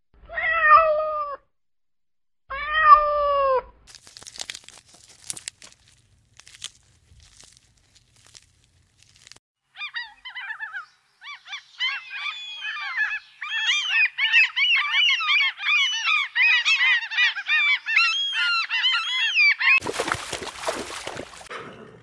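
A cat meowing twice, two short calls that fall in pitch. Then a flock of gulls calling over one another, many overlapping squealing calls for about ten seconds, ending in a short burst of noise.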